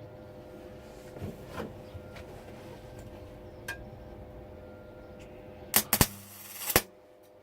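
A steady hum with a few light clicks, then a MIG wire-feed welder striking an arc for about a second, about six seconds in: a short crackling burst with sharp pops at its start and end, a tack weld on thin steel sheet.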